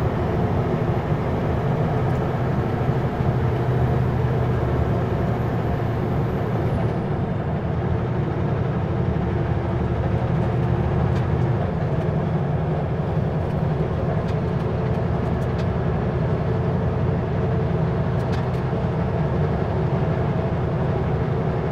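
Steady drone of engine and road noise from a vehicle under way, holding an even pace throughout.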